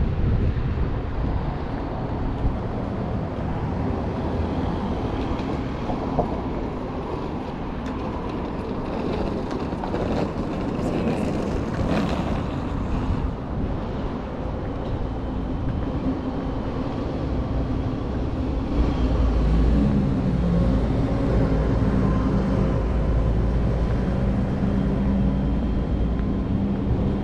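City street traffic: a steady low rumble of passing vehicles. A louder, deeper engine hum sets in about two-thirds of the way through.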